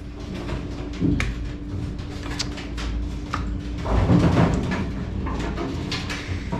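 Steel bracket from an AMF 82-30 respot cell being clamped and bent straight in a bench vise: scattered metal clicks and scrapes, with a louder knock about four seconds in.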